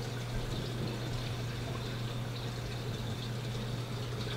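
Steady low hum under an even hiss of background noise, with no distinct events.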